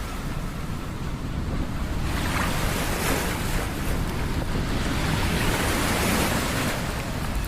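Ocean surf, with waves breaking and washing in, swelling and easing every couple of seconds. Wind rumbles on the microphone underneath.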